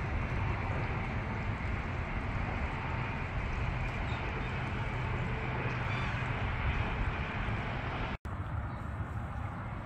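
Steady wind noise on the microphone: a dense low rumble with hiss, and a couple of faint bird calls around the middle. The sound drops out for an instant a little after eight seconds.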